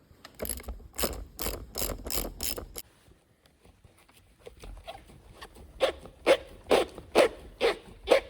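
Rasping mechanical strokes from hand work on the motorcycle handlebar, in two runs of about six strokes each, two to three a second, with a pause of about three seconds between; the second run is louder.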